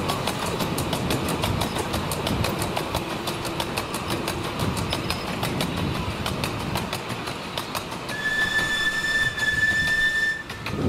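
Miniature steam train rolling past, its carriage wheels clicking rhythmically over the rail joints. About eight seconds in, the replica Bulleid Merchant Navy Pacific locomotive sounds its whistle: one steady high note lasting a couple of seconds.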